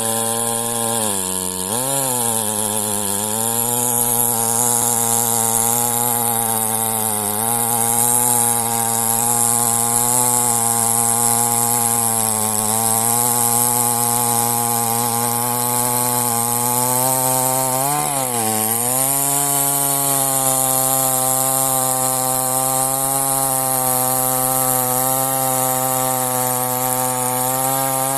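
Chainsaw running at high speed, cutting into a date palm trunk. Its pitch dips briefly and recovers about a second and a half in, again around three and seven seconds, and most deeply around eighteen seconds in, as the chain bogs under load in the cut.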